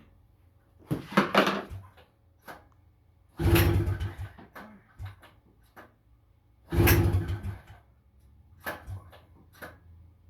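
Honda FL250's two-stroke single-cylinder engine being pull-started three times, about three seconds apart: each pull is a short rattling crank with fast pulsing, and the engine never fires, in keeping with the carburetor trouble that keeps it from starting.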